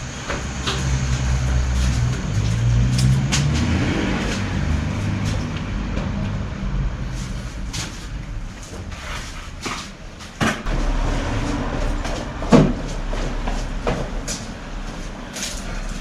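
Long wooden boards knocking and clattering as they are carried in and handled, with a sharp knock of wood on wood about twelve and a half seconds in. A low engine rumble runs under the first several seconds.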